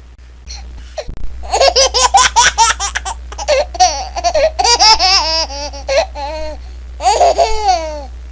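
A baby laughing in several bursts from about a second in: quick runs of high-pitched giggles, then longer squealing laughs that slide up and down in pitch.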